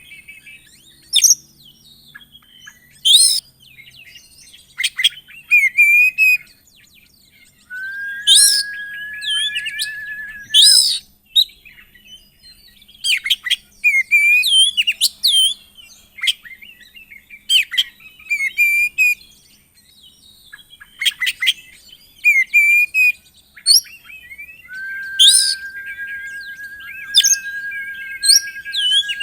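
Oriental magpie-robin singing a loud, varied song of sharp chirps, quick trills and short whistled phrases. Twice it holds a long steady whistled note for about three seconds.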